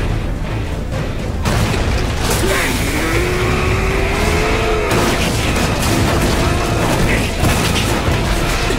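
Music mixed with the mechanical sound effects of omni-directional mobility gear firing and reeling in its wires.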